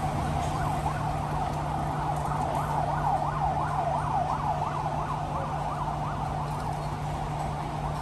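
Emergency-vehicle siren in a fast yelp, about three rising-and-falling sweeps a second, loudest around the middle and fading toward the end, over steady street traffic.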